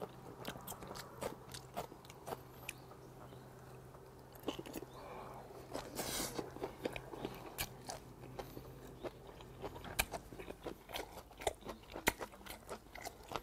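Close-miked chewing and biting of chewy straw-grilled hagfish, with many short wet mouth clicks.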